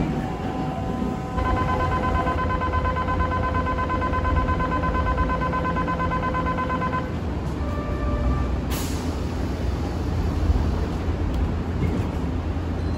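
Kyoto Municipal Subway 10 series train standing at the platform over a low rumble: a steady buzzer-like tone holds for about five seconds, a short chime follows, and about nine seconds in a sudden hiss of air as the doors close.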